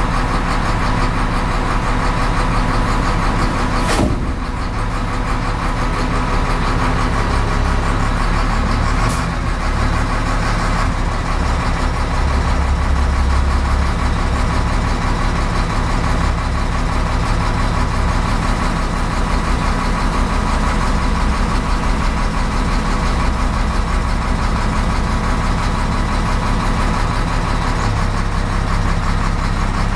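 Large wheel loader's diesel engine running steadily while the boom and bucket are worked, swelling to a heavier rumble for a couple of seconds near the middle. A sharp knock comes about four seconds in, and a fainter one a few seconds later.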